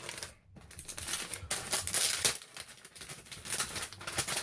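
Hands rummaging in a cardboard shipping box packed with packing peanuts: irregular rustling, crinkling and small clicks and knocks.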